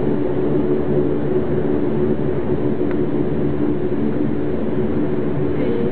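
Fokker 50 turboprop engines and propellers running at taxi power, heard from inside the passenger cabin: a steady drone with several held tones over a rushing noise.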